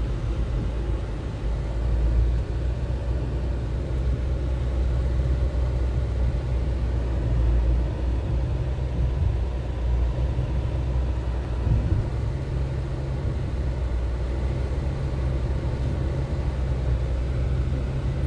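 Steady low rumble of a Mercedes E320 CDI (W211) diesel saloon driving at road speed, heard from inside the cabin: engine and tyre noise.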